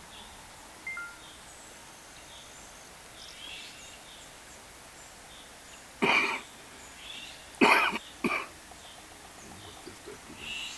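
A person coughing: one cough about six seconds in, then two more close together just under two seconds later, over a faint steady outdoor hiss with a few faint chirps.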